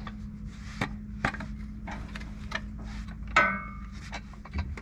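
Freshly sawn pine boards being slid and handled, knocking against each other and the sawmill. A loud clank with a brief metallic ring comes a little over three seconds in, all over a steady low hum.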